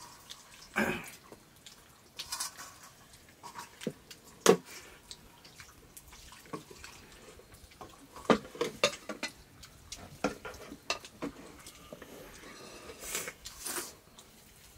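Scattered clinks, taps and scrapes of fingers and a ladle on steel plates and a metal cooking pot as rice is eaten by hand and served, with one sharper knock about four and a half seconds in.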